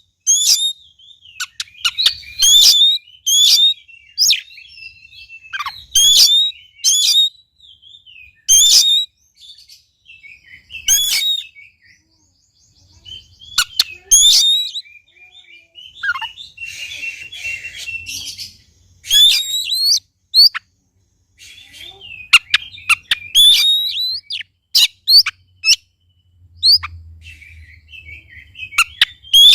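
Oriental magpie-robin (kacer) singing loudly in a long, varied run of sharp rising whistles and quick chirps, with a harsh rasping phrase about halfway through.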